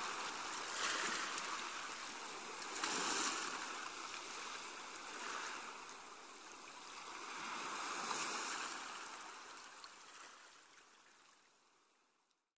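Small waves washing onto a beach, a swell of surf noise every two to three seconds, fading out to silence near the end.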